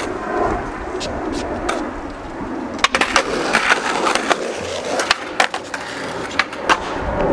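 Skateboard wheels rolling on concrete, then a run of sharp clacks and knocks of the board on the ground and ledge from about three seconds in.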